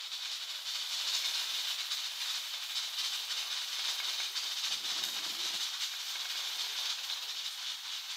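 Pressure cooker under full pressure, with steam hissing steadily out of its weighted whistle valve and a fine, fast rattle in it.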